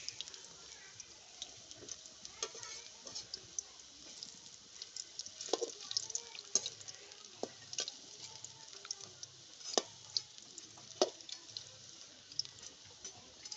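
Fish-roe fritters frying in hot oil, a steady sizzle with frequent small crackles and several louder sharp pops or ticks.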